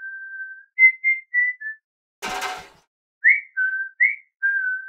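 A person whistling a simple tune: a held note, a run of short notes, then more short and held notes. About two seconds in, a brief noisy burst breaks the tune.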